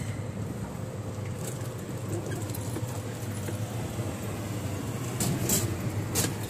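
Steady low hum and rumble under an even wash of background noise, with a few sharp clicks in the last second or so.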